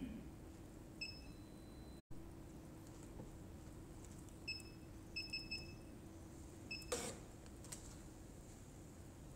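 Electronic price computing scale beeping as its keys are pressed: one short beep about a second in, a longer, higher tone just after, then a quick run of short beeps around the middle. A brief clatter follows near the end, over a faint steady hum.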